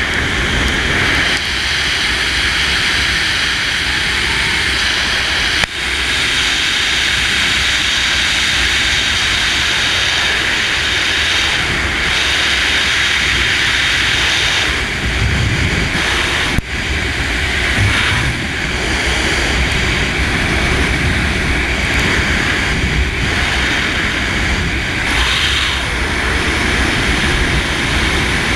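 Loud, steady rush of wind over a body-mounted camera during a fast wingsuit-style flight, with a low rumble of buffeting beneath and two brief dropouts.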